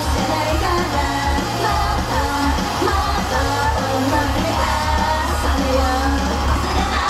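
Japanese idol pop song performed live: young women singing into handheld microphones over a loud backing track with a heavy, steady bass line.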